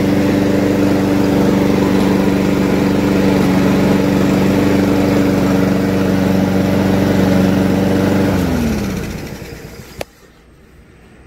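Honda GCV160 single-cylinder lawnmower engine running steadily and evenly, without sputtering or missing. About eight seconds in it is shut off and its pitch drops as it spins down to a stop. A single click follows a second or so later.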